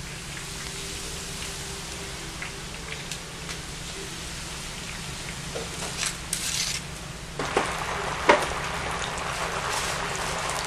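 Sesame-battered chicken deep-frying in oil in a cast-iron cauldron: a steady sizzling hiss, with metal tongs clicking against the pot now and then. The sizzle grows louder about seven seconds in, and a sharp clack comes just after.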